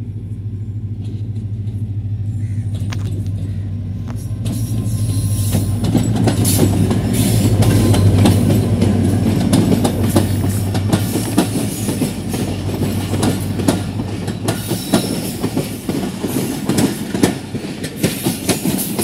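Diesel locomotive approaching and running past close by, its engine drone growing to its loudest about eight seconds in, then fading. The passenger coaches follow, with a steady clickety-clack of wheels over rail joints.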